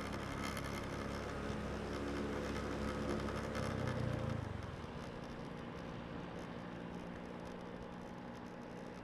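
Road traffic at a city roadside: a car engine hums past close by, loudest about four seconds in. It then fades into a quieter, steady drone of passing traffic.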